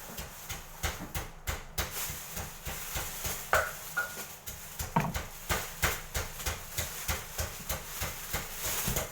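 A rapid, uneven series of sharp clicks and knocks, about three or four a second.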